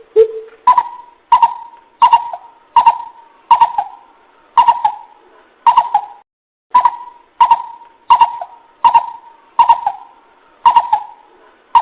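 Coucal hooting: a steady series of short, deep hoots, about one every 0.7 s with brief gaps, each opening with a sharp click, and one lower note at the start. This is the coucal call used as a lure to draw other coucals in.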